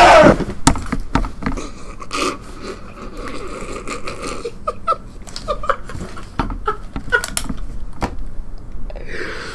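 A man laughing hard in breathless wheezes and short high yelps, with scattered knocks and clicks.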